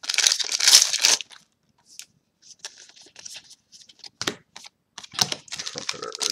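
Foil wrapper of a Cardfight!! Vanguard booster pack crinkling and tearing as it is opened by hand. A loud burst of crinkling in the first second is followed by scattered small crinkles and clicks, and more crinkling begins about five seconds in.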